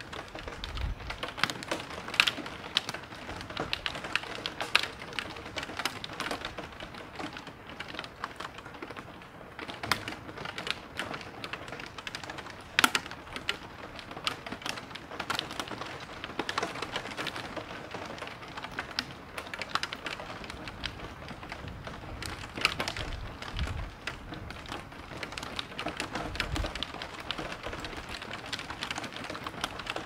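Heavy rain falling, with a dense, irregular stream of sharp ticks from drops striking a hard surface close by. A few brief low rumbles come and go underneath.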